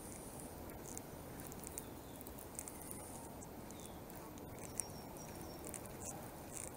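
Faint outdoor ambience: a steady low rumble of wind on the microphone, with scattered short, high chirps and squeaks, some gliding down in pitch.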